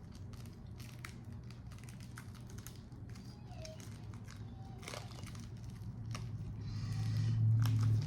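Jewelry packaging crinkling and clicking in scattered bursts as a pendant is worked loose from a tight fit, over a low hum that swells near the end.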